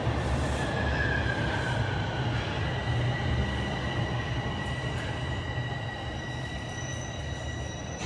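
TTC Line 1 subway train running, a steady low rumble with several high, steady whines over it; one whine falls in pitch about a second in.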